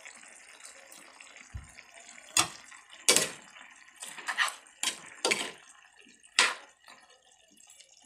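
About six short, wet plops and taps at irregular intervals as onion rings are dropped into a pot of saucy chicken stew.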